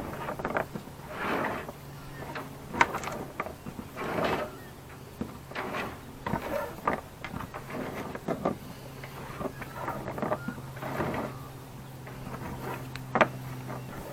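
Halyard rope being pulled hand over hand through a sailboat mast, the old line drawing a new 6 mm halyard in after it. It makes a string of short sliding, scraping pulls at uneven spacing, with a couple of sharp knocks.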